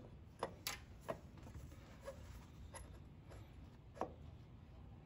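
Faint, irregular metallic clicks and light knocks, several over a few seconds, as a new harmonic balancer is worked by hand onto the crankshaft snout of a 3.6L Pentastar engine and pushed into its seat.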